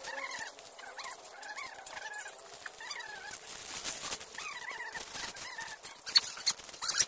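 Red plastic dish baskets being rinsed: water splashing and pouring off them, with sharp plastic clatter about six and seven seconds in as a basket is knocked and set down. Repeated short rising-and-falling animal calls sound throughout.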